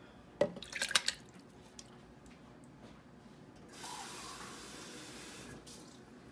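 A few sharp clinks and taps of metal on the blender jar, then a steady hiss of liquid pouring into the jar for nearly two seconds, about four seconds in.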